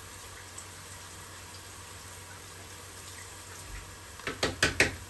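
Water from a kitchen tap splashing in a sink as something is rinsed, in a short loud burst of splashes near the end. Before it there is only a steady low hiss.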